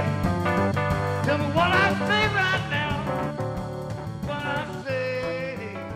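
Music with a sung melody over a steady bass line, slowly fading out.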